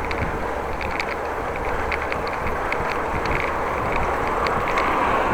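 Steady rolling noise of a bicycle ride: tyres on the road and wind on the microphone, with small scattered ticks.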